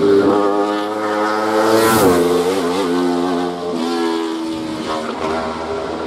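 Hillclimb race car's engine at full throttle. The revs rise, drop with an upshift about two seconds in, then hold until the sound weakens near the end as the car pulls away.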